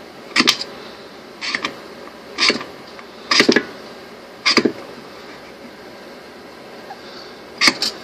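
Striker scraped hard across the tiny ferro rod set in the bottom of a match case: five short scrapes about a second apart, a pause, then two quick scrapes near the end. The rod is worn nearly flush with the plastic, so the striker catches on the plastic and throws no sparks, as the owner finds.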